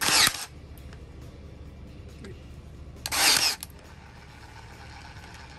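Ryobi P320 AirStrike cordless 18-gauge brad nailer firing twice into scrap wood, about three seconds apart, each shot a short loud burst lasting about half a second.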